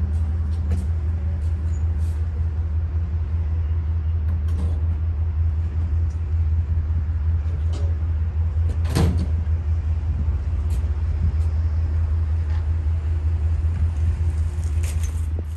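Amtrak passenger train standing at the platform, its equipment idling with a steady low hum. A single sharp clank about nine seconds in.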